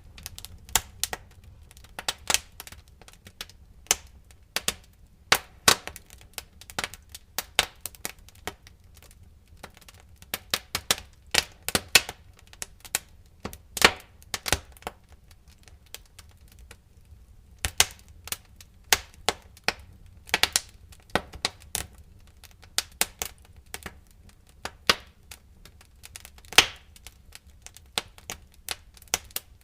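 Wood fire crackling, with irregular sharp pops and snaps from the burning firewood over a steady low rumble; the pops come in busy clusters with a quieter stretch about halfway through.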